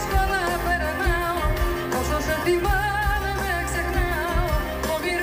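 A woman singing a Greek laïko song live with vibrato, backed by a band with a steady bass beat.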